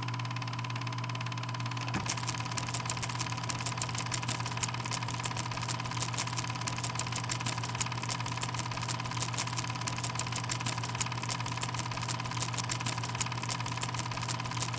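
Film projector running: a steady motor hum, joined about two seconds in by a rapid, even clatter of clicks.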